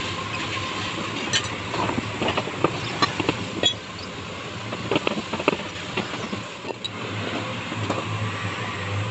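Steady mechanical running noise with a faint steady tone, overlaid by a series of irregular sharp clicks and knocks between about one and six seconds in.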